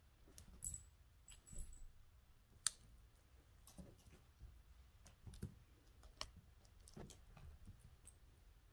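Faint, scattered clicks and soft rustles of a cat playing with a small toy on a rug, with one sharper click about two and a half seconds in.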